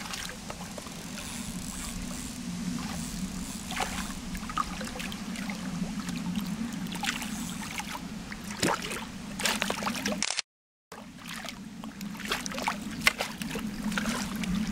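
Hooked mirror carp splashing and thrashing at the surface as it is drawn over a landing net, with water sloshing in short irregular splashes over a steady low hum. The sound cuts out completely for about half a second about two-thirds of the way through.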